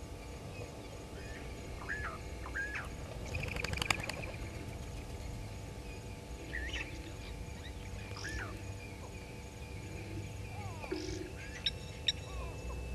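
Birds calling in the African bush: scattered short chirps and whistles, with a quick rattling call about four seconds in, over a steady low background rumble.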